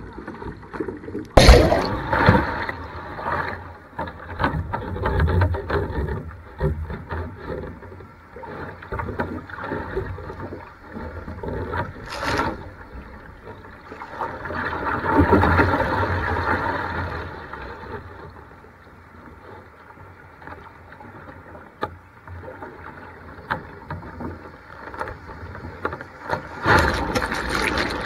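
Rough sea water splashing and washing over a sea kayak's deck, heard through a GoPro's housing, with a heavy hit about a second and a half in and surges of white water, the biggest near the end.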